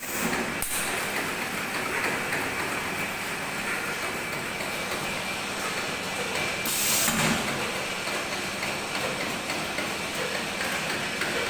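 Semi-automatic bottled-water packaging machinery running steadily, with a short hiss about half a second in and a longer, louder hiss around seven seconds in.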